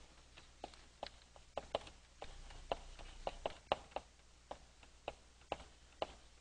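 Chalk tapping and scraping on a blackboard as writing goes on: an irregular run of sharp little clicks, about three a second.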